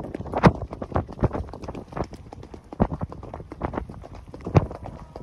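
Pony galloping on a dirt forest track, its hoofbeats heard from the saddle as irregular thuds, about two or three a second.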